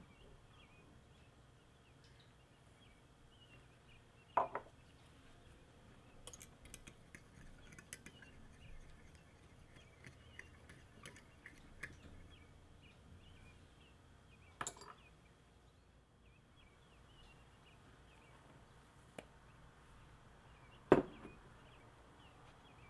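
A metal spoon ticking and scraping against a glass measuring cup for several seconds as it stirs yeast into water, with a few single clinks of glass around it. The loudest is a sharp clink near the end.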